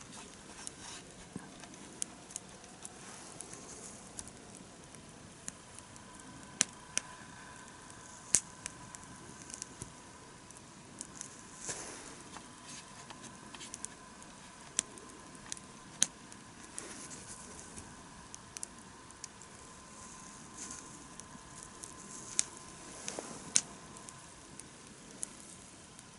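Wood campfire burning, crackling with irregular sharp pops and snaps, a handful of them much louder than the rest.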